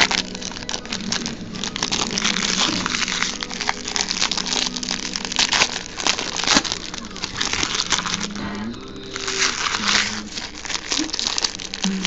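Crinkling and tearing of a Stadium Club baseball card pack wrapper, torn open and handled by hand as a dense, irregular crackle.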